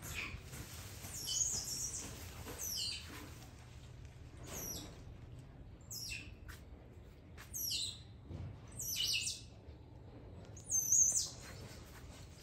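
Small birds chirping: about seven short, high calls that drop in pitch, one every second or two.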